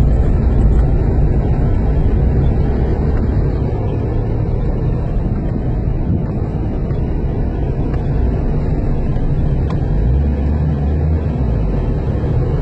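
Steady low rumble of a motor vehicle under way: engine and travel noise without a break.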